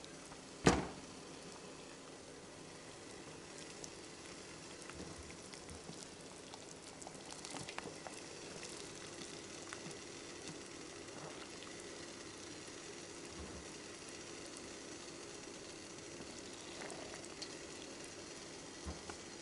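Water boiling in a stainless-steel pot: a steady bubbling hiss, with one sharp knock about a second in and a few light clicks and taps after it.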